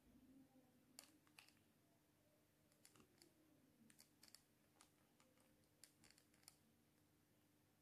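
Faint, irregular clicks of a mobile phone's keypad buttons, about a dozen short presses as the menu is stepped through between ringtones.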